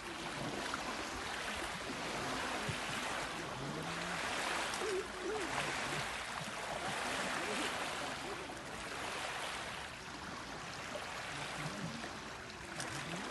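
Steady rushing noise of wind and lake water lapping at the shore, swelling and easing every few seconds, with faint distant voices now and then.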